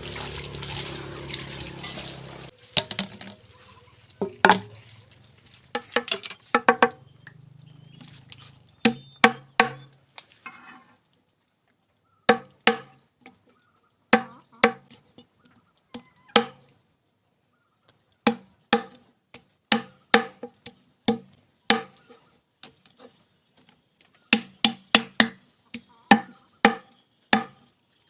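Knife chopping food on a cutting board: sharp knocks in irregular runs, some quick, some spaced with pauses. The first couple of seconds are a steady hiss like running water.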